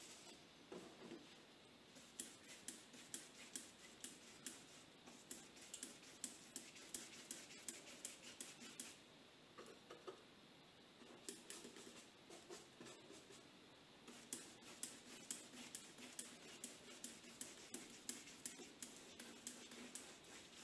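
Faint scratchy strokes of a clean, dry paintbrush dragged over oil paint on paper, in runs of quick strokes with short pauses. The bristles drag with more resistance where the paint is drying.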